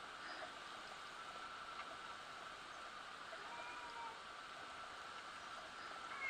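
Faint, steady outdoor background noise: an even hiss with a thin, steady high hum. A faint, short, gliding call comes about three and a half seconds in.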